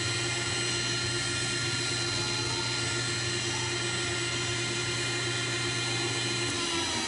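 Hydraulic-powered pipe beveling machine running idle between cycles: a steady hum with several high whining tones. Near the end one whine begins to drop in pitch.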